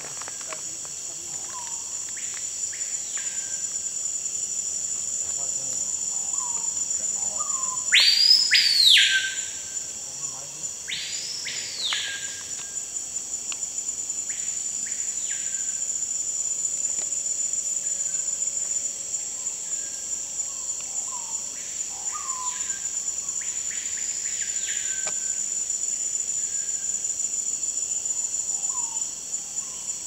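Screaming piha whistling its loud, ringing calls: about seven rising-and-falling whistles, each led by a few soft low notes, the two loudest about a third of the way in and the rest fainter. A steady high-pitched insect drone runs underneath.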